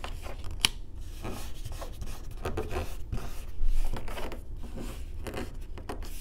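Hands rubbing and pressing sticker paper down over the edge of a chipboard planner cover, making irregular paper rustles and scrapes, with one sharp click about half a second in and a louder rub a little past the middle.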